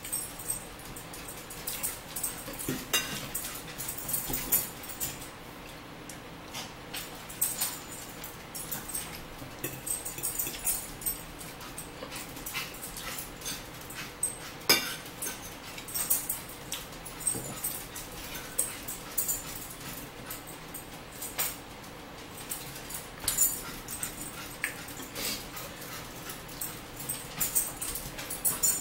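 A dog whimpering now and then, over the clicks and scrapes of forks on plates as people eat.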